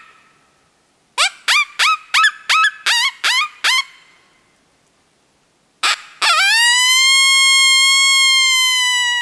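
Open-reed coyote hand call (the Snack Time) blown to imitate a female coyote's whimper, the 'bitch talk' used in the mating season. It gives a run of about eight short yips, each falling in pitch, about three a second, then after a pause a long drawn-out whine held steady for about three seconds.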